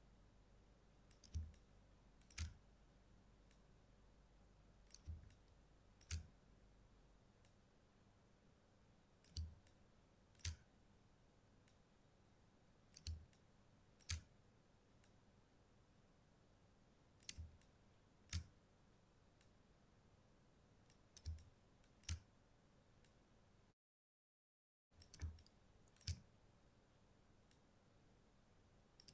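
Computer mouse clicking as path points are placed one after another: single sharp clicks in pairs about a second apart, each pair three to four seconds after the last, over faint hiss. The sound cuts to dead silence for about a second two-thirds of the way through.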